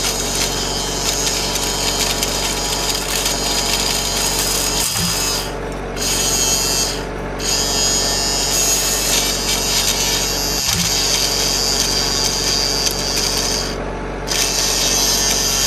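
Small electric motor of a homemade miniature chaff cutter whirring steadily as grass stalks are fed in and chopped. Its high whine drops out briefly three times, and a faint low knock comes about every six seconds.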